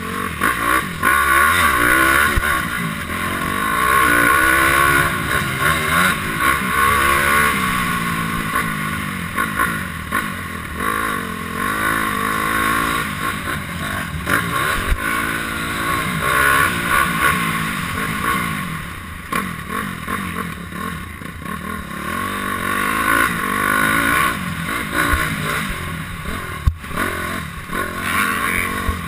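Honda CRF250R's single-cylinder four-stroke engine being ridden hard, revving up and down again and again as the rider works the throttle and gears, heard from an on-board camera.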